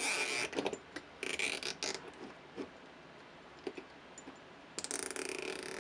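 Nylon zip ties being pulled tight through their ratchet heads: a rapid clicking rasp in three pulls of a second or less, the last near the end.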